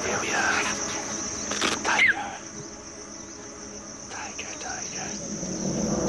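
Steady high-pitched drone of insects in grassland, with a few short chirping calls over it in the first two seconds and again around four seconds in.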